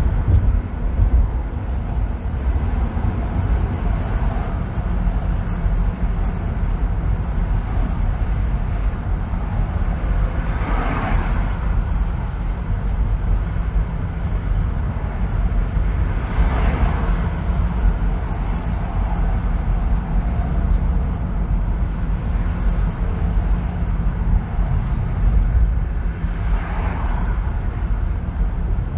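Car driving on a freeway: a steady, deep road rumble with a haze of tyre and wind hiss. Three brief swells of hiss come and go, about a third of the way in, just past halfway, and near the end.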